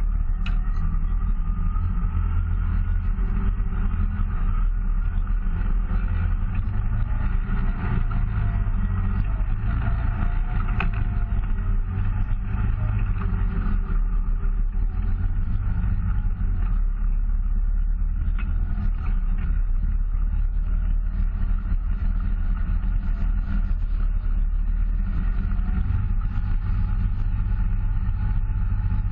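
Off-road side-by-side's engine running steadily at low trail speed, heard from a camera mounted on the vehicle, with its pitch drifting only slightly.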